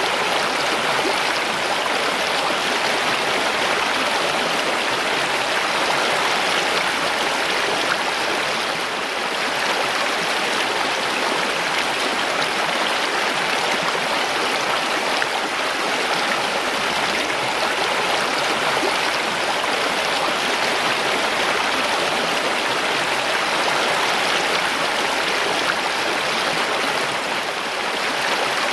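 Mountain stream: water rushing and splashing over rocks in a steady, even flow.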